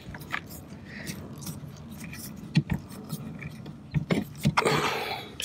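Scattered small clicks and taps, with a short rustle near the end, as fingers work a plastic license plate light housing and its clip in the bumper recess.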